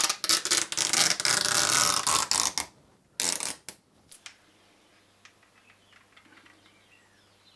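Rapid mechanical ratcheting clatter for about two and a half seconds, then a shorter burst and a single click.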